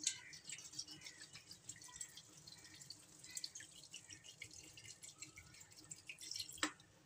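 Water pouring in a thin stream into a metal pressure cooker, splashing over pieces of raw beef and whole spices. A single sharp knock comes near the end, just before the pouring stops.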